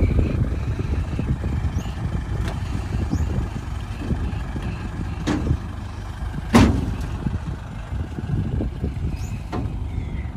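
Flatbed tow truck's engine idling with a steady low rumble. A few sharp knocks sound over it, the loudest about two-thirds of the way through.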